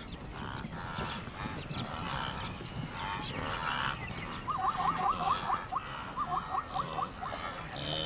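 Animal calls at night: two runs of quick, repeated yelping notes, about five a second, over an outdoor background.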